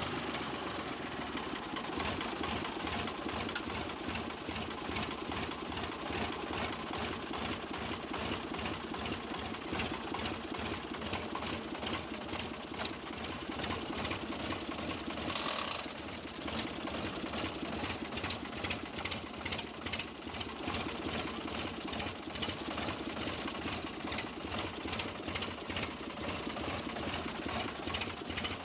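Sonalika DI 745 tractor's diesel engine running steadily with an even, rapid beat, while the freshly repaired gearbox is tried through the gears.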